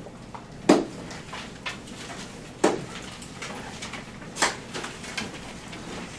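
Classroom bustle of students putting notebooks away and getting laptops out: scattered knocks and clunks on desks, three louder ones about two seconds apart, with smaller clicks between.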